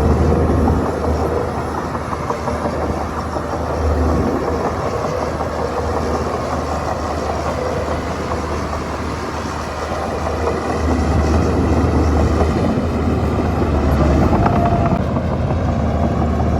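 Shantui bulldozer's diesel engine running under working load with a deep, steady drone. Its level eases off for several seconds and then builds up again in the second half as it spreads landfill.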